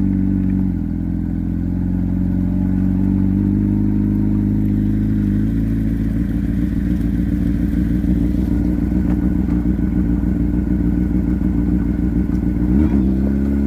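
Motorcycle engine running steadily, its pitch stepping to a new level about a second in and again about halfway through, with a short rise in revs near the end.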